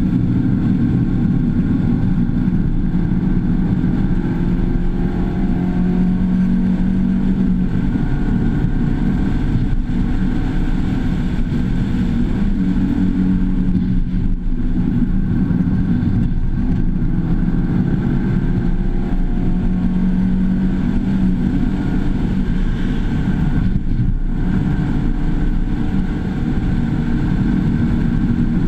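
Mazda2 four-cylinder engine working hard on a racetrack lap, heard from inside the cabin with road noise. The engine note climbs under acceleration, and the engine briefly backs off a couple of times.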